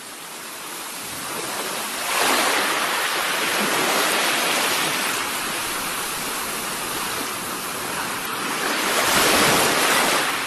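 Open-sea waves rushing and splashing, with wind. The sound fades in, then swells about two seconds in and again near the end.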